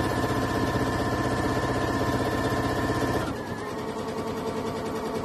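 Baby Lock Allegro sewing machine running a straight stitch at a steady fast speed, its motor hum and rapid needle strokes even. About three seconds in it slows to a lower, steady speed and keeps stitching.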